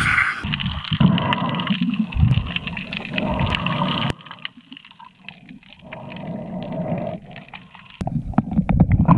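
Muffled underwater sound from a diver's action camera: water noise with scattered clicks and knocks, changing abruptly about four and again about eight seconds in.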